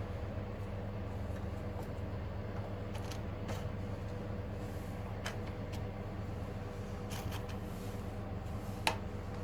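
Scattered light clicks and clinks of small metal parts and tools while a carburetor, washer and air filter are fitted to a Honda GX160 engine, the loudest a short metallic ping near the end, over a steady low background hum.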